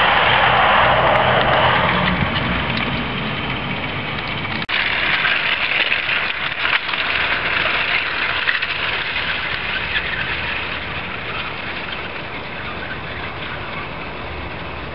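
00 gauge model train running along garden track, its wheels rattling on the rails. The sound is loudest at the start as a coach passes close by. After a sudden break about five seconds in, it continues and slowly fades as the train draws away.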